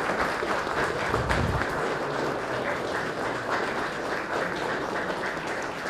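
Audience applauding steadily, many hands clapping at the end of an acceptance speech.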